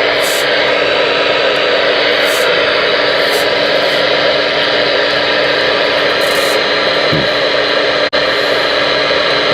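Galaxy DX-94HP radio's receiver putting out loud, steady static hiss through its speaker with the squelch open, a steady low hum underneath. The hiss cuts out for an instant about eight seconds in.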